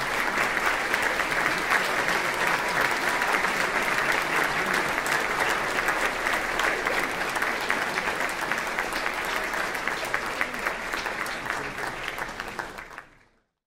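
Audience applauding: many hands clapping in a dense, steady mass. It fades out quickly about thirteen seconds in.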